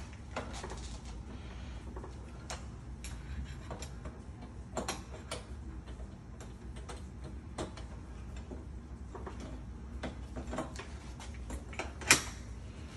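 Scattered metallic clicks and knocks of hand tools and lock parts as a mortise lock is worked on, with one louder sharp clack near the end.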